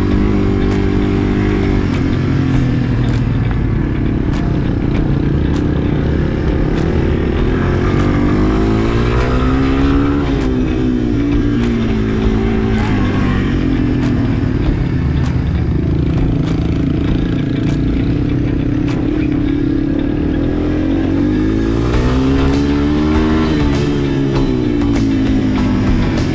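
Yamaha dirt bike's single-cylinder four-stroke engine running as it is ridden, revving up and easing back down twice, about ten seconds in and again near the end.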